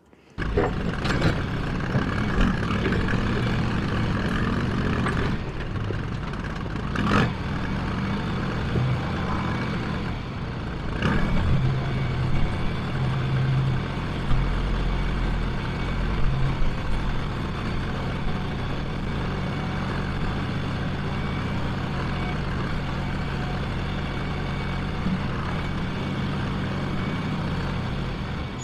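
John Deere 310A backhoe's diesel engine running steadily, with a couple of short knocks about seven and eleven seconds in.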